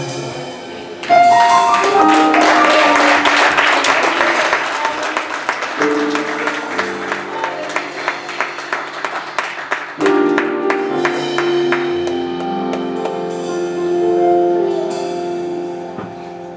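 Live gospel band playing an instrumental passage: drums and cymbals under held chords, with a quick rising run of notes about a second in.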